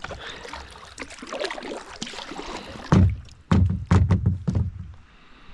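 Kayak being boarded and pushed off: rustling movement with water, then a quick run of loud, hollow knocks and thumps against the kayak hull about three seconds in.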